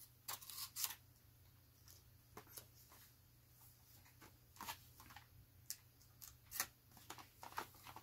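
A knife cutting and prying at the plastic clamshell packaging of a RAM kit, making a string of short scrapes and crackles of plastic.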